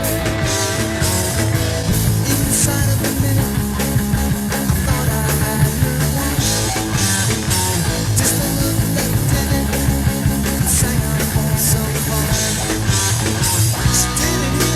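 Rock band playing an instrumental passage with electric guitars, bass and drums, cymbals striking steadily. A held guitar note with vibrato fades out about two seconds in.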